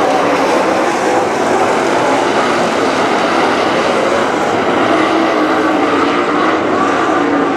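Dirt late model race cars' V8 engines running on the track, a loud, steady engine drone with its pitch wavering slightly.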